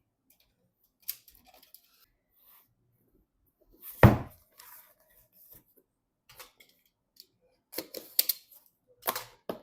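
Hands handling PC parts: scattered light clicks and rustles, one heavy knock about four seconds in, and a quick run of sharp clicks near the end.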